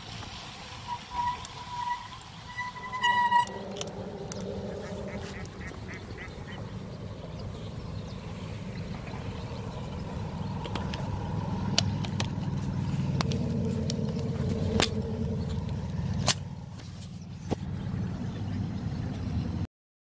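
Waterfowl calling: a few short pitched calls in the first few seconds. After that a steady low rumble that slowly grows louder, with a few sharp clicks.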